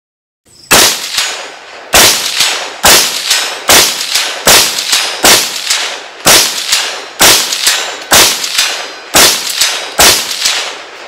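Kel-Tec CMR-30 semi-automatic .22 WMR carbine fired shot after shot at a steady, unhurried pace, about a dozen sharp reports roughly one a second, each trailing off in an echo.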